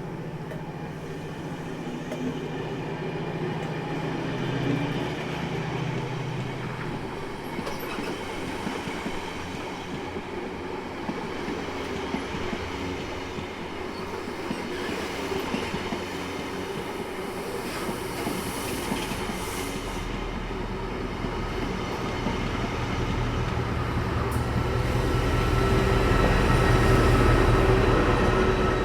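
Chiltern Railways Class 68 diesel locomotive with Mk3 coaches running on the rails: a steady train noise that deepens and grows louder in the last third, with a thin steady whine near the end.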